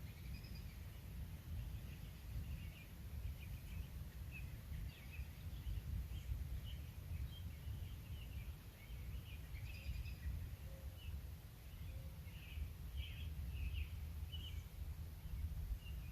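Birds chirping in many short, scattered calls over a steady low rumble.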